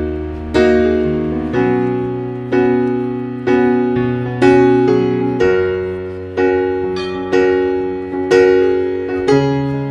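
Background piano music: slow chords struck about once a second, each fading away, over held bass notes.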